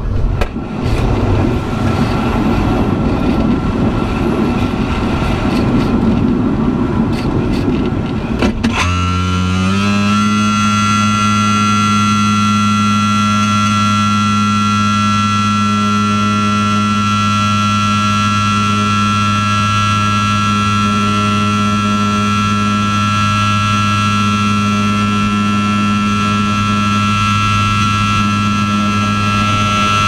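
Rushing airflow in the cockpit of a Swift S-1 aerobatic glider during low-level aerobatics. About nine seconds in it gives way suddenly, after a brief rise in pitch, to a steady, even hum with a clear high tone that holds unchanged for the rest of the time.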